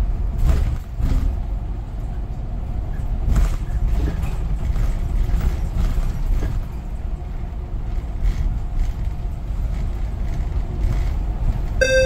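Inside a moving city bus: steady low engine and road rumble with occasional short knocks and rattles. Near the end a chiming melody of rising notes begins.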